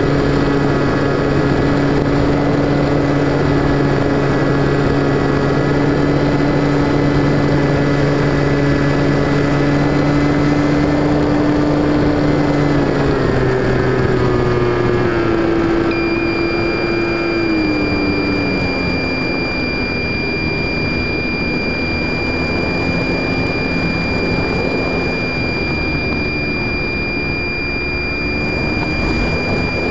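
Electric motor and propeller of an FPV Raptor RC plane, heard from its onboard camera, running steadily with wind noise. About halfway through, the pitch wavers and falls as the throttle changes, and a thin high steady whine sets in.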